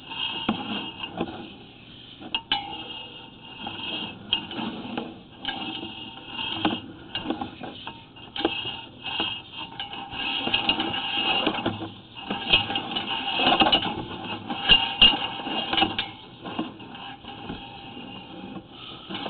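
Sewer inspection camera and its push rod clattering and scraping in a root-filled clay sewer pipe as the camera is pushed in and pulled back. The irregular knocks and clicks come as the camera head bumps through the roots.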